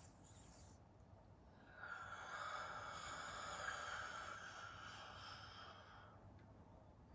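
The tail of a hissing out-breath fades away in the first second. Then, about two seconds in, a slow, soft breath in lasts about four seconds, taken with the tongue on the roof of the mouth as part of a yogic breathing exercise.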